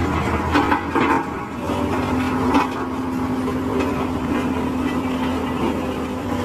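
Sakai SV510D road roller's diesel engine running steadily as the roller drives over loose gravel, with a few short crackles.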